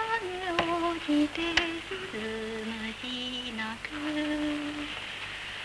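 A voice humming a slow tune without words, holding each note and stepping up and down between them, with a few sharp clicks of old soundtrack crackle.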